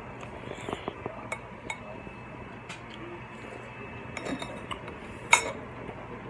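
Scattered clinks and light knocks of dishes and cutlery at a dinner table, with one sharp, loud clink a little over five seconds in.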